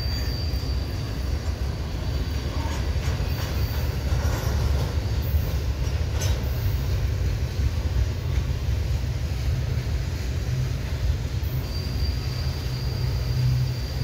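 Double-stack container freight cars rolling slowly past, with a steady low rumble of wheels on the rails. A thin, high wheel squeal from the curve sounds in the first few seconds and again near the end, and there is one sharp click about six seconds in.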